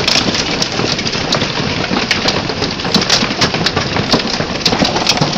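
Heavy hailstorm: hailstones pelting down on grass and nearby hard surfaces, a dense steady patter broken by many sharp individual hits.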